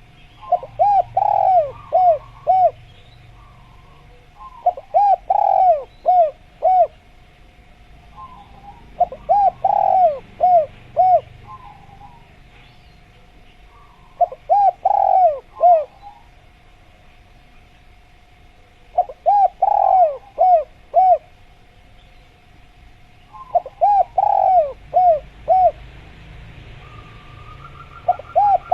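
Spotted dove (tekukur) cooing in repeated phrases, each a quick run of five or six coos, coming about every four and a half seconds. A faint steady tone runs underneath.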